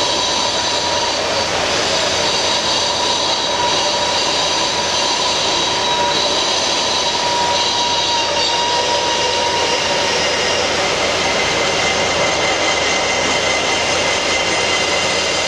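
Marble blank being turned on a motor-driven lathe, a hand-held steel bar scraping against the spinning stone. It makes a steady grinding noise with high ringing tones that shift pitch a few times.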